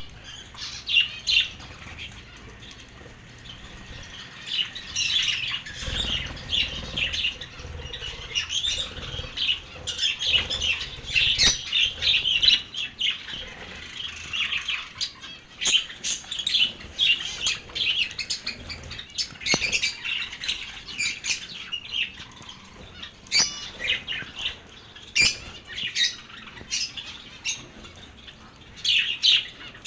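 Pet lovebirds calling: many short, high-pitched chirps and squawks in irregular clusters.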